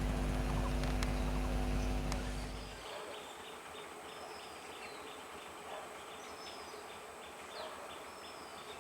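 Steady electric hum of an EMU train that fades out about three seconds in. Insects then chirp in a quick regular rhythm, about three pulses a second, with a few faint bird chirps.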